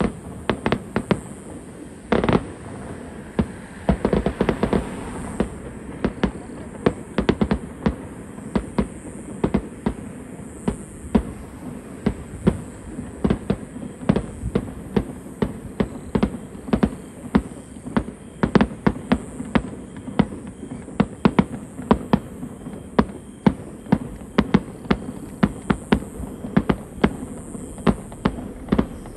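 Fireworks display: a dense, irregular run of sharp bangs and pops from bursting shells, several a second at times.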